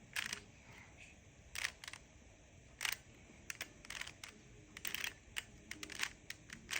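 Plastic Rubik's Cube layers being turned by hand: a run of irregular, quick, light clicks and clacks as the faces are twisted.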